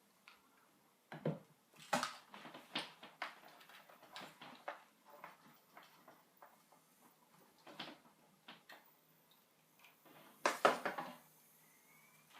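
Irregular light clicks and knocks of handling, with a louder cluster of knocks about ten and a half seconds in.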